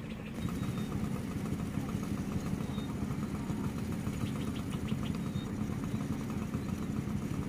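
A vehicle engine running with a steady low hum, a little louder from about half a second in.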